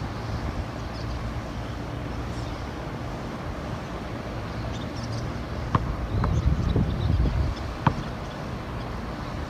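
Steady low rumble of wind buffeting the microphone outdoors, swelling in gusts past the middle. Over it come a few faint sharp knocks, the basketball striking the court or hoop, about two-thirds of the way in and once more near the end.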